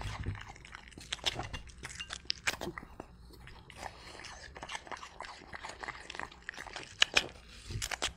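A French Bulldog chewing and crunching apple: a steady run of irregular crunches and bites, loudest a couple of times near the end.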